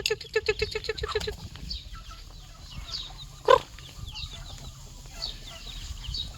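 Chickens: a fast run of clucks that stops about a second in, many short, high falling chirps throughout, and one loud, sharp squawk about three and a half seconds in.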